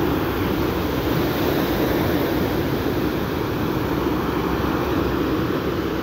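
Ocean surf breaking and washing up a sandy beach, a steady rushing noise, with wind rumbling on the microphone.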